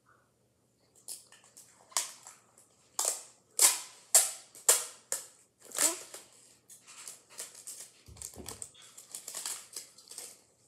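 Adhesive tape being pulled off the roll in a series of short rips, about eight in a few seconds, then quieter crinkling and handling of the tape and paper, with a dull bump near the end.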